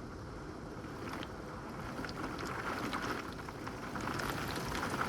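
Wind-driven rain of a severe thunderstorm: a steady hiss with scattered drop ticks, slowly growing louder.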